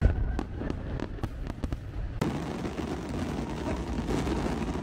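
Fireworks going off: a run of sharp, separate bangs, then from about two seconds in a dense crackle of many small pops.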